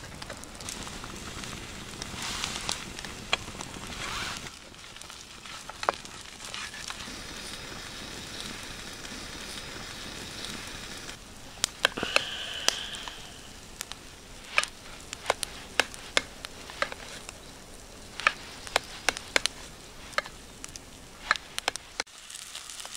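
Steady crackling and sizzling noise, with sharp clicks and taps of a knife against a metal camp plate as onion and Spam are sliced. A brief squeak about twelve seconds in, and the noise drops away just before the end.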